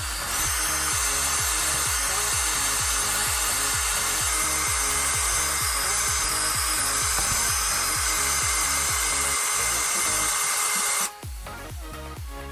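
18-volt cordless drill spinning up and running steadily for about eleven seconds as it bores into a rugged smartphone, then cutting off abruptly. Background music with a steady beat runs underneath.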